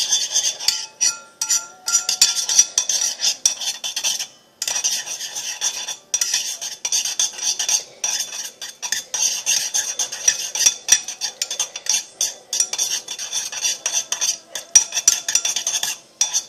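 A utensil stirring a thick mixture of body wash, shower gel and salt in a ceramic bowl: fast, continuous scraping and clicking against the bowl, with brief pauses about four and a half and six seconds in.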